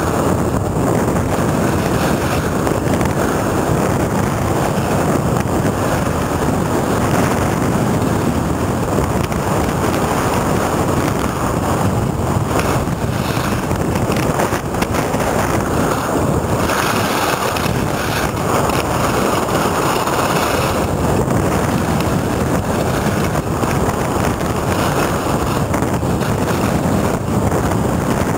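Wind rushing over the microphone during a downhill ski run, mixed with skis scraping and hissing over hard-packed snow. The steady rush swells and eases a little as speed changes.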